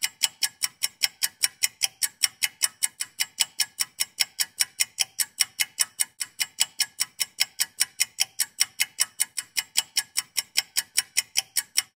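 Fast, even ticking, about five ticks a second, like a clock-tick sound effect laid over fast-forwarded footage to mark time passing; it stops abruptly near the end.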